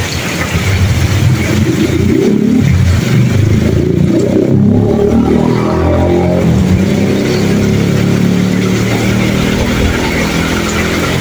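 Light box truck's engine running as it drives past through floodwater, its note shifting in pitch as it passes, over the steady hiss of heavy rain.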